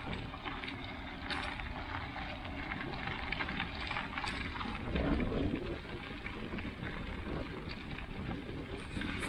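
Bicycle on studded tires rolling over packed snow, a steady rolling noise, with wind rumbling on the microphone.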